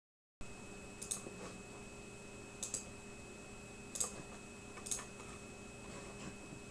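Four faint, sharp clicks, spaced irregularly, over a steady electrical hum.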